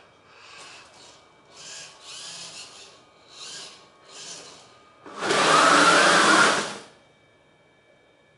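Small electric motors on a robot's turret whir in four short bursts as the turret moves. Then comes a much louder buzzing burst of about a second and a half, an electric airsoft gun firing on full auto.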